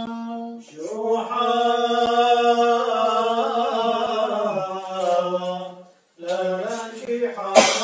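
A single male voice chanting a liturgical melody unaccompanied, holding long notes that step slowly up and down, with short breaks about a second in and about six seconds in. A sharp click near the end is the loudest moment.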